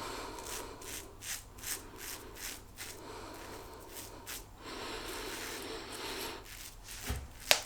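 Quad edge safety razor scraping through lathered stubble in a run of short strokes, then one longer stroke, with a single sharp knock near the end.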